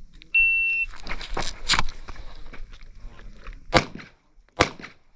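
A shot timer beeps once for about half a second to start a USPSA stage. Pistol shots follow: two close together about a second after the beep, then two more, well apart, with handling and movement noise between them.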